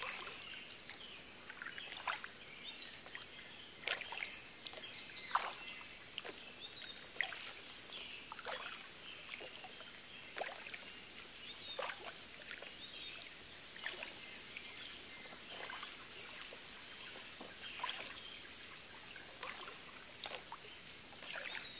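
Water lapping and splashing against a small boat gliding over calm, shallow sea, in short, irregular swishes every second or two over a steady high hiss.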